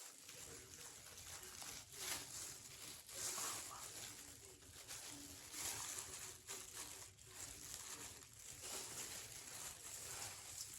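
Faint, irregular rustling and handling noises with a few short knocks.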